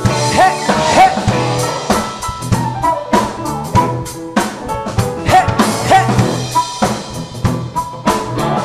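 A blues band plays an instrumental break between verses: a steady drum kit groove with short, sliding lead phrases over the bass.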